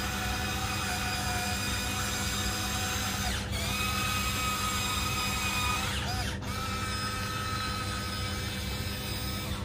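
Electric motors and gearboxes of a Huina 1594 RC excavator whining steadily as its boom and arm move. The tone dips briefly and changes twice, about three and a half and six and a half seconds in, as a different function starts.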